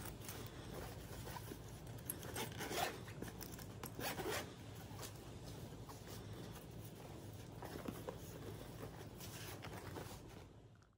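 Zipper on a Fjällräven Kånken No.2 Laptop 15 backpack being drawn along in several quick strokes, the loudest around three and four seconds in, over the rustle of the canvas bag being handled.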